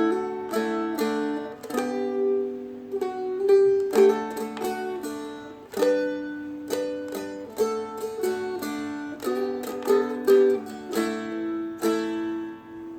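Seagull Merlin M4 four-string strumstick in open D, strummed and picked through a country verse riff: melody notes over ringing open strings. The playing stops about half a second before the end, leaving the notes to die away.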